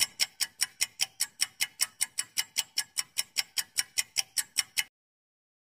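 Countdown-timer ticking sound effect: sharp, even clock-like ticks at about five a second, stopping suddenly after about five seconds as the answer time runs out.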